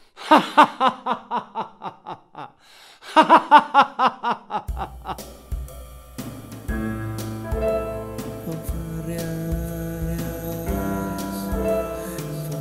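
A man's villainous laugh, two bouts of quick 'ha-ha-ha' that fall in pitch, then about five seconds in the instrumental introduction of a song starts, with held chords and a steady beat.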